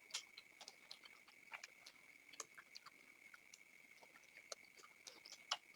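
Faint chewing and mouth smacks of people eating chicken and rumali roti: scattered soft clicks at irregular intervals, over a steady thin high-pitched tone.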